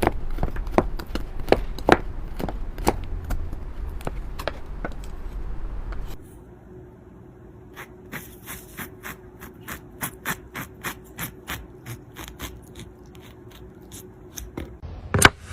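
A run of short, sharp taps and scrapes, about two or three a second, which change about six seconds in to a quieter, lighter run over a faint steady hum, with one louder knock near the end.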